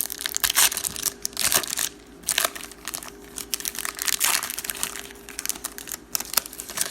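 Crinkling and crackling of trading-card pack wrappers being torn open and handled, in irregular bursts of rustling.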